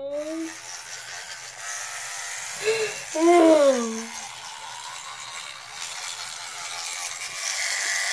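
Battery-powered spin toothbrush running steadily in the mouth, a motor buzz with the scrub of bristles on teeth. A short falling vocal sound breaks in about three seconds in.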